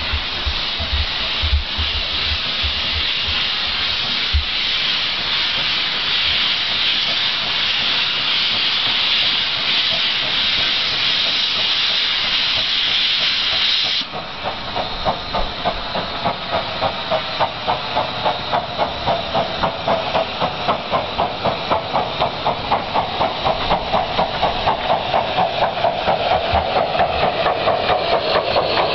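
Miniature steam locomotive blowing off a steady, high steam hiss, which cuts off abruptly about halfway. It is followed by the regular chuff of its exhaust beats, gradually quickening as it pulls away.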